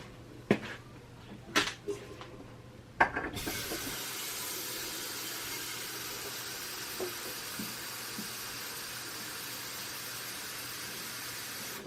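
A few short knocks, then from about three seconds in a kitchen tap runs steadily, filling a stainless steel tea kettle with water.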